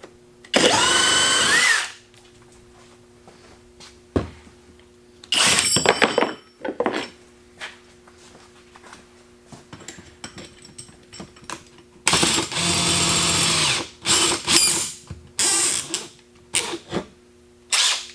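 Cordless hammer drill motor run in several short trigger bursts a few seconds apart: a brief whine rising in pitch near the start, a clicking burst, and a longer steady run about two-thirds of the way in.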